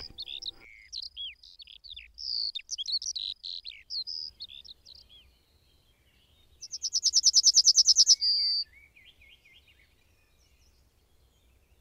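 Yellowhammer singing once, about seven seconds in: a quick run of about a dozen repeated notes growing louder, ending in a longer drawn-out note. Before it, a songbird gives a string of varied high chirps and short warbled notes.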